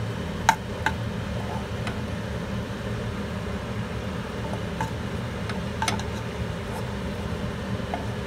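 A steady low hum, like a kitchen fan or appliance running, with about five sharp clinks of utensils or dishes; the loudest clink comes about half a second in.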